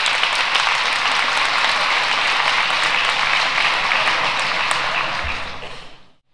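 Audience applauding: dense, steady clapping that fades out quickly near the end.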